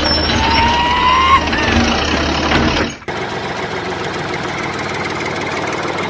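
Heavy vehicle engine running with a steady low hum and a brief rising whine; about three seconds in it cuts abruptly to a steady rushing noise.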